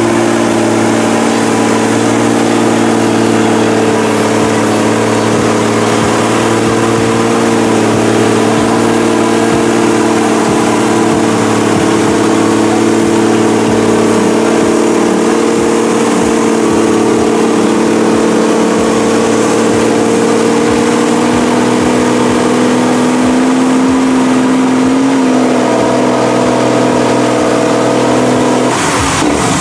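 First-gen Dodge's 12-valve 5.9 Cummins diesel running hard at steady revs under load as the truck churns through deep mud, a constant engine drone that edges up in pitch about 25 seconds in.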